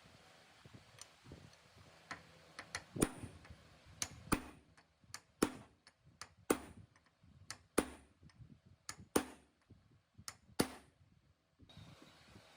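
A series of sharp knocks, about one every second or so, with fainter clicks between them.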